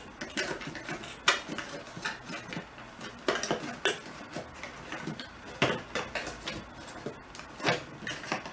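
Irregular clicks and taps from a homemade whack-a-mole box as cats bat at the toys popping up through its holes.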